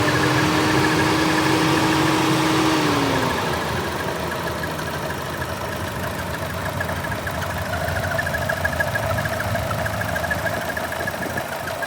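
Machinery running with a fast, even, high-pitched squeak repeating all through, over a steady hum that slides down in pitch about three seconds in.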